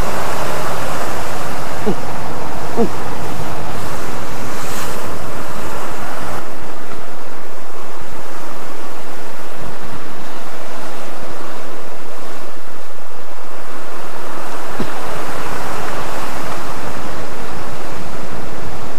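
Sea surf breaking and washing against the foot of a rocky sea cliff: a loud, continuous rush that swells and eases, with wind buffeting the microphone.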